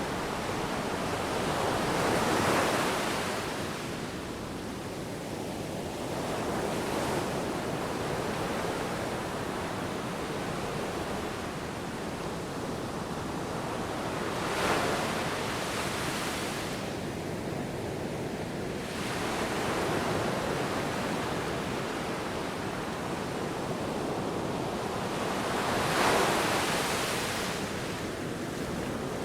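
Sea waves breaking and washing in a steady rush, with bigger surges about two and a half seconds in, near the middle and near the end.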